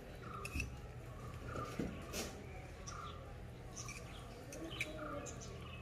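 Light clinks and taps of a tiny metal spoon against small steel cups as chopped vegetables are scooped into a miniature clay pot. Behind them a bird chirps, one short call repeated about once a second.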